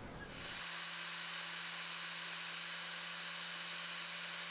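Electric disc sander spinning freely: a steady whirring hiss over a low motor hum, setting in about half a second in and holding even.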